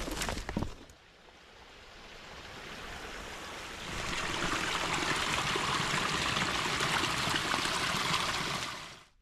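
A moment of rustling, hurried footsteps in dry leaf litter, then a small woodland brook running and trickling. The brook fades in, grows louder about four seconds in, holds steady and then cuts off suddenly.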